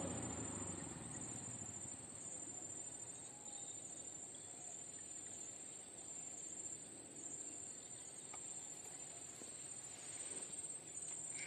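Insects droning in a steady, high-pitched whine that holds without a break, over a faint hiss.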